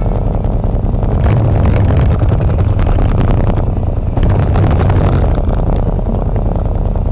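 Motorcycle engine running steadily at low speed, heard from on board the moving bike.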